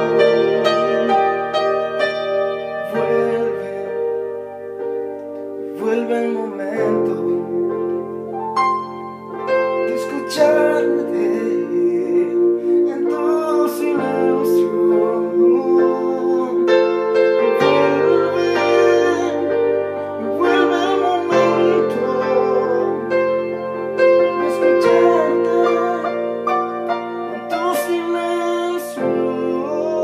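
Electronic keyboard playing a slow instrumental passage: sustained piano-like chords over a bass note that changes every three to four seconds, with single melody notes struck over them.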